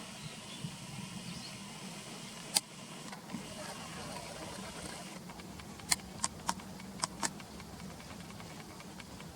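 Steady outdoor background hum with a few sharp, very short sounds: one about two and a half seconds in, then five in quick succession around six to seven seconds in.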